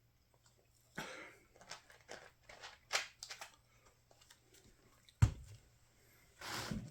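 Hand-sewing a torn bicycle seat cover with needle and thread: a run of short scratchy rustles as the thread is worked through the cover, a sharp knock about five seconds in, and a longer rasping rustle near the end.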